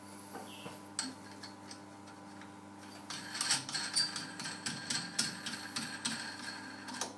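Steel nut being run down a threaded stud by hand on a strap clamp, giving a rapid run of small metallic ticks and clinks that starts about three seconds in and stops just before the end. A faint steady hum runs underneath.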